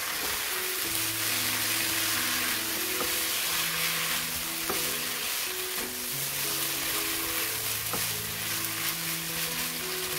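Beef and vegetables sizzling hard in a hot wok as they are stir-fried, with a steady frying hiss. The spatula makes a few light clicks against the pan as it tosses the food.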